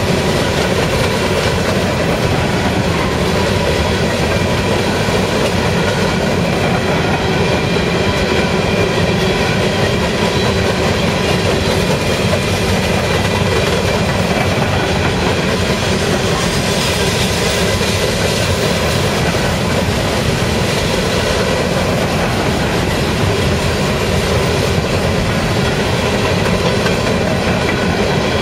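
Empty open-top rock hopper cars rolling past: a steady rumble and clatter of steel wheels on the rails.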